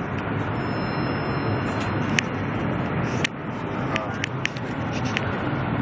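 Steady rumble and rush of a high-speed bullet train heard from inside the passenger car while running at speed, with a few sharp clicks along the way.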